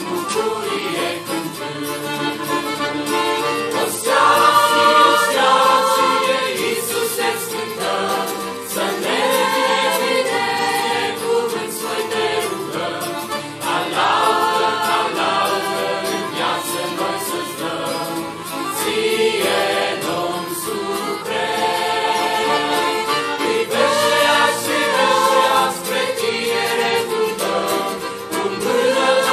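Mixed youth choir singing a Romanian Christian hymn in several voices, accompanied by two accordions and a guitar. The singing comes in phrases that swell and ease off over a steady accordion backing.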